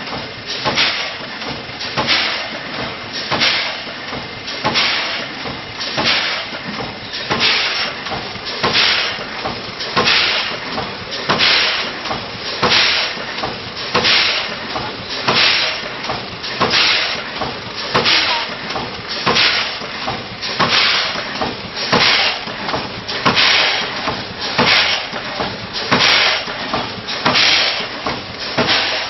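Automatic vertical form-fill-seal granule packing machine running, with a hissing clatter that repeats about once a second as it forms, fills and seals each bag.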